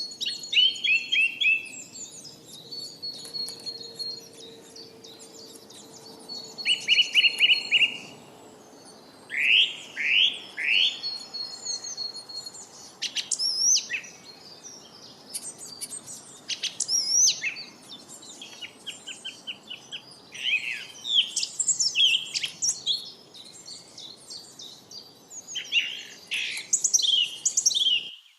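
Lovebirds chirping: quick runs of short falling chirps mixed with sharp high squeaks, coming in close bursts throughout.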